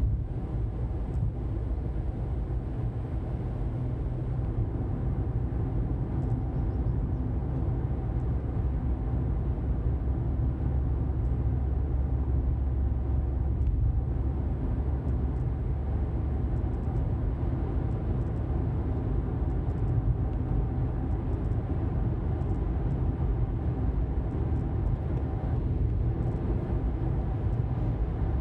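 Car driving at road speed: a steady low rumble of tyres on tarmac and engine noise, with no breaks or sudden events.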